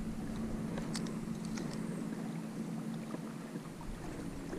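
Open-water lake ambience: light wind and water lapping, with a faint steady low hum and a few small ticks about a second in.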